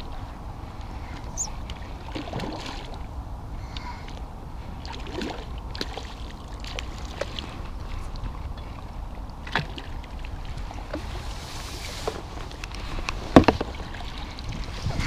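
Light water sloshing and splashing at the water's edge, with scattered clicks and knocks and a sharper knock near the end, over a steady low rumble.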